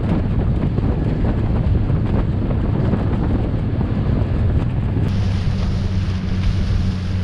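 Outboard motor on a small inflatable boat running steadily under way, a low even hum beneath heavy wind buffeting on the microphone and the rush of choppy water. The hiss turns brighter about five seconds in.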